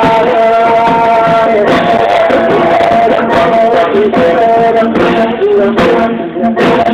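Loud music with a male voice singing a held, bending melody over a dense instrumental backing.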